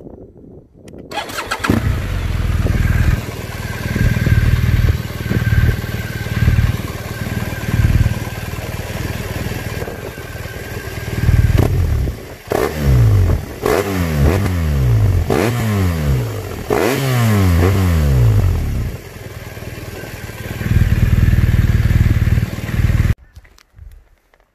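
BMW R1200R flat-twin engine starts about a second and a half in and idles with light throttle blips. After a short break about twelve seconds in, it is revved sharply several times, each rev falling back to idle, and the sound cuts off abruptly near the end. The later revving is heard through an AC Schnitzer aftermarket silencer.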